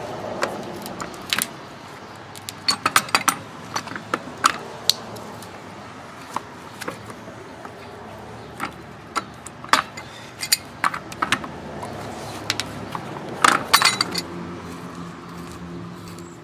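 Small metal parts clinking and clicking as a brass fitting from a water heater is handled and stripped of its steel pieces: scattered sharp metallic clicks, with a quick cluster of them near the end.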